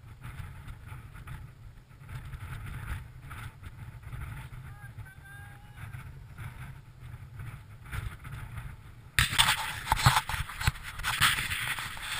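Wind noise on a GoPro's microphone. From about nine seconds in, louder rubbing and knocking of a hand handling the camera.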